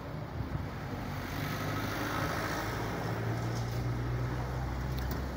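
Steady low engine hum of a motor vehicle running, growing a little louder about a second and a half in.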